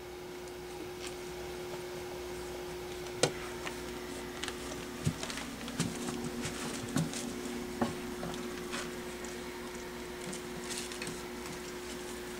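Scattered light taps, clicks and scuffles of small puppies playing, over a steady hum.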